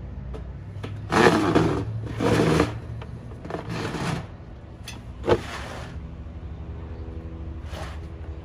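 Plastic concrete-mixing tubs sliding in and out along the wooden runners of a rat rack, heard as several scraping slides and a sharp knock a little past five seconds in, over a steady low hum.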